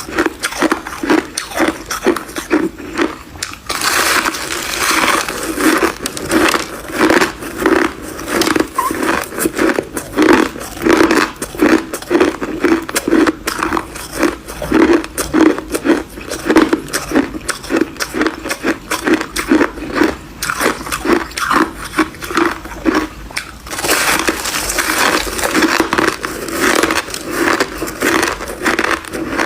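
Crushed white ice being bitten and chewed close to the microphone: loud, dense crunching and crackling in a steady chewing rhythm of about two bites a second.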